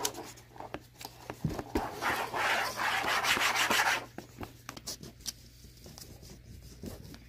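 Fingers rubbing and handling a small plastic toy and its paper leaflet on a table. A rasping rub lasts about two seconds in the middle, with small clicks and taps before and after it.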